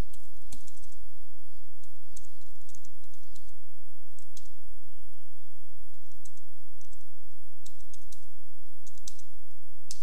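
Computer keyboard keys clicking as a short command is typed: irregular single keystrokes with short pauses between, over a steady low hum.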